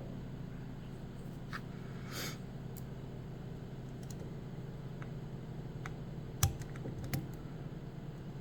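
Faint, scattered clicks and a brief scrape of a lock pick and tensioner working the sliders inside a French pump lock, with one sharper click about six and a half seconds in. A steady low hum runs underneath.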